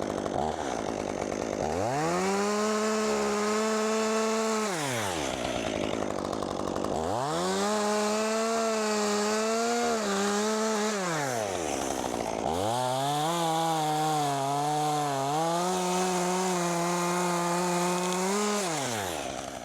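Chainsaw revved to full throttle three times, each run rising, holding several seconds and dropping back, as it cuts through the top of a tree. The pitch sags and wavers under load in the last and longest run.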